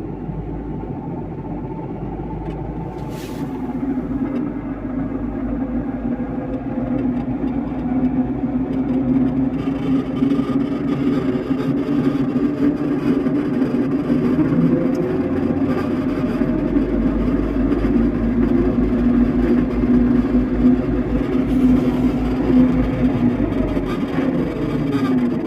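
Mitsubishi Outlander's worn driveshaft center support bearing howling under the car while driving. It is a steady drone that grows louder over the first several seconds and drops in pitch near the end.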